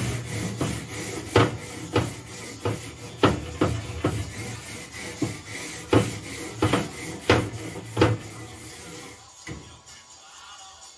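Steel wire brush scrubbing the steel cooking grate of a barrel smoker: repeated scraping strokes, each ending in a sharp knock of the brush on the grate, about one every two-thirds of a second. The strokes stop about nine seconds in.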